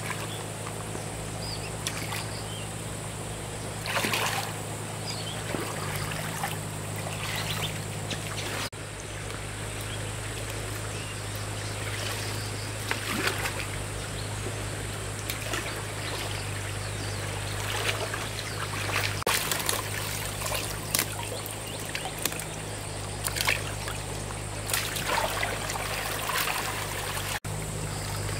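Water trickling and splashing steadily, with a few louder splashes, over a steady low hum.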